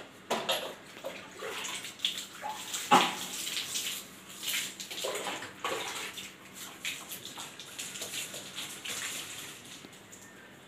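Water poured from a plastic mug over long hair, splashing and pattering onto the wet floor, with the mug dipped and scooped in a bucket of water between pours. The splashes come irregularly, the loudest about three seconds in.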